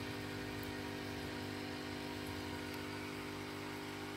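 A motor humming steadily at an even pitch, without change.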